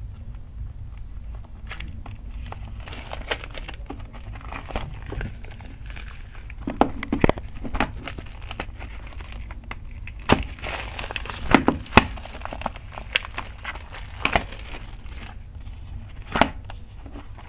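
Plastic shrink-wrap being torn and peeled off a Blu-ray case, crinkling and crackling in irregular spurts. Sharper snaps and clicks come mostly in the second half.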